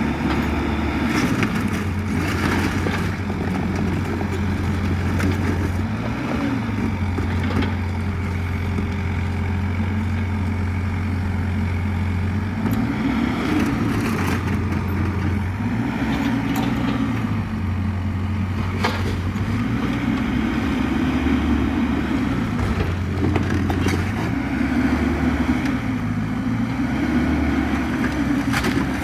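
Cat 305 mini excavator's diesel engine running steadily, its note rising and falling every few seconds as the hydraulics take load. A few sharp cracks and knocks come through, about a second in, near two and a half seconds, around fourteen and nineteen seconds, and near the end.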